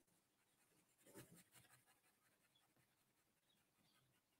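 Very faint scratching of a pen drawing strokes on sketch paper, otherwise near silence.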